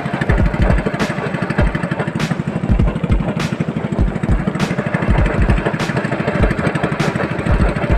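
A small boat engine running steadily, with a rapid low putter and a sharp tick about once a second.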